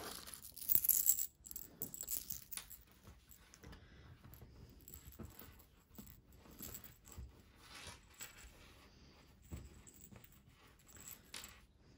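Small hard items clattering as a hand rummages through a wooden box of knitting tools, loudest about a second in. Then faint rustling and scattered light clicks as hands push fibre stuffing into a knitted doll's head.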